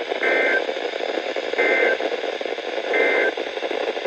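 Three short bursts of Emergency Alert System (SAME) data tones from a NOAA Weather Radio broadcast, a warbling two-pitch screech about a second and a half apart, the end-of-message signal that closes an alert. Steady radio static hiss runs underneath.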